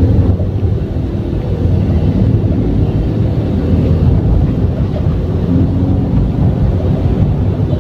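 Steady low road and tyre rumble inside the cabin of a moving Honda Brio RS, the road noise the owner finds irritating.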